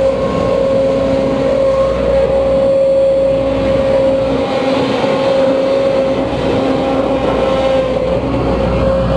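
Case CX210B excavator running, with a steady high whine over the engine: main hydraulic pump noise, which the mechanic suspects is a failing main pump.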